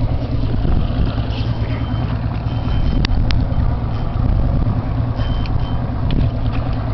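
Boat engine running steadily, with a few sharp clicks about three seconds in.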